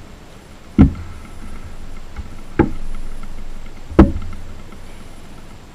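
Three sharp knocks of tableware on a wooden table, each with a short ring, spaced under two seconds apart: a glass mug is set down, and metal spoons knock against it and a plastic ice cream tub.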